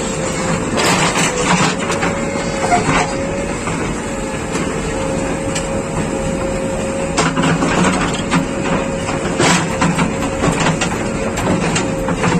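JCB 3DX Plus backhoe loader's diesel engine running steadily, with a steady high whine over a low rumble and irregular sharp knocks and clanks of metal.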